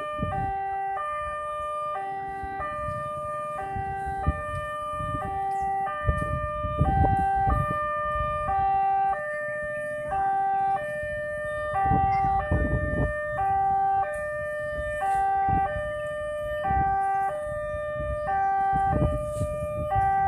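Railway level-crossing warning alarm sounding: an electronic two-tone signal alternating a lower and a higher note about every 0.7 seconds, repeating steadily, the signal that a train is approaching the crossing.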